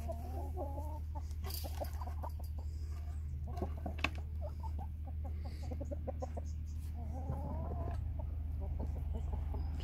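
Domestic chickens clucking, with short bursts of calls just after the start and again around seven seconds in. A sharp knock about four seconds in, over a steady low hum.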